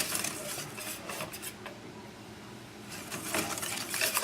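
Fine wire whisk stirring pumpkin pancake batter in a mixing bowl, its wires clicking and scraping against the bowl. The whisking stops for about a second in the middle, then starts again.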